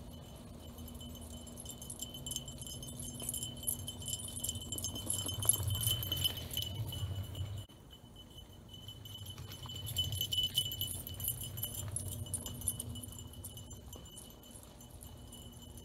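A mountain bike and a running dog passing close by on a dirt trail, with metallic jingling and rattling over a low rumble of tyres and paws. It swells twice, about six seconds in and again about ten seconds in, then fades as they ride away.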